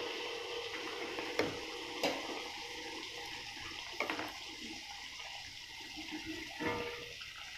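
Malpua batter frying in hot oil in a steel kadai: a steady sizzle. A few sharp clicks of a metal ladle and slotted spoon against the pan, about four times.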